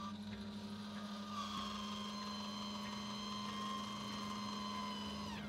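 MaxxAir 7500K roof vent fan running: a steady low hum with a higher motor whine that sets in about a second in and drops away near the end.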